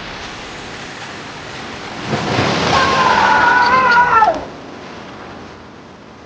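Steady rain-like hiss, then about two seconds in a loud, long, wavering cat meow that bends down and fades at the end.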